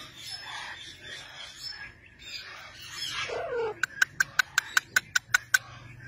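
Parakeets calling: a short call about three seconds in, then a rapid run of about ten sharp clicking notes, some six a second, lasting nearly two seconds.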